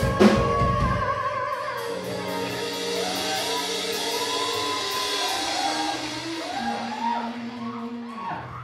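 Live post-hardcore band ending a song: a last drum hit right at the start, then guitars and keyboard ring out in a long held chord with a voice singing over it, slowly fading.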